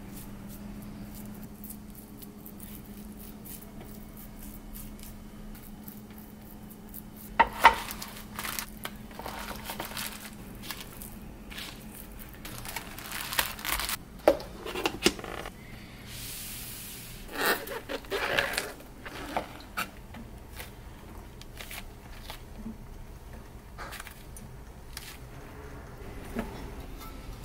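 Kitchen prep handling: soft rubbing and paper rustling with scattered sharp clacks and knocks of containers and lids, the loudest about eight seconds in. A faint steady hum runs under the first several seconds.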